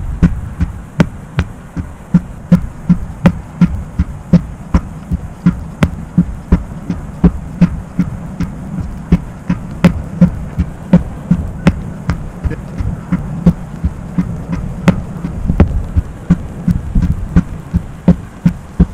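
Sledgehammer striking a rubber tractor tire over and over, a dull thud about twice a second.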